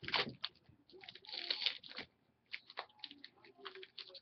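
Crinkling and tearing of a trading-card pack wrapper and cards being handled, in short crackly bursts with a brief pause about two seconds in.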